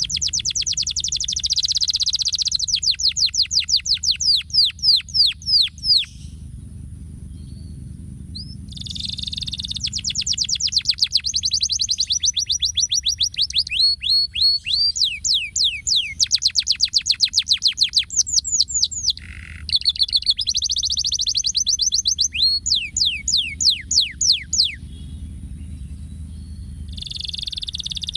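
Domestic canary singing long phrases of rapid trills and fast repeated downward-sweeping notes. It breaks off for about two seconds after about six seconds and again near the end.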